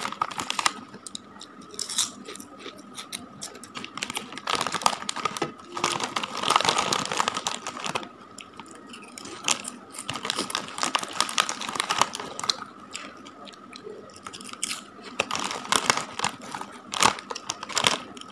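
Crinkling of a plastic potato-chip bag being handled, mixed with potato chips crunched between the teeth. It comes in irregular clusters of sharp crackles.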